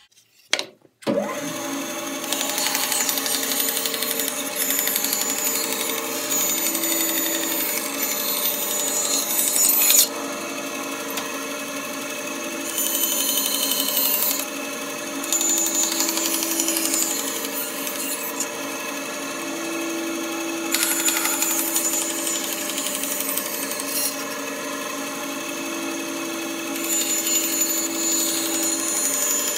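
Bandsaw cutting a curve through a timber board that has been relief-cut: a steady machine hum under a hissing cutting noise. The noise swells and eases as the wood is fed into the blade in short stretches. It starts abruptly about a second in.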